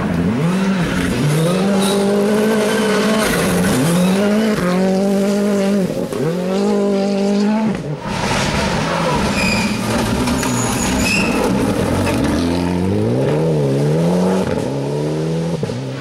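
Rally car engines at full throttle on a gravel stage. The engines climb in pitch through the gears, with sharp breaks between shifts. Near the end the revs rise and fall quickly as a car brakes and shifts down for a corner.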